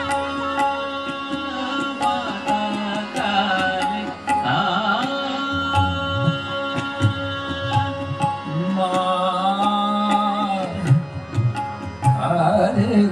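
Hindustani classical devotional music: tabla strokes over a steady drone from tanpura and harmonium. A voice sings long, held, wavering phrases at intervals.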